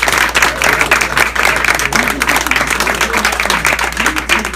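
Audience clapping and applauding, a dense run of many hands at the end of a short speech.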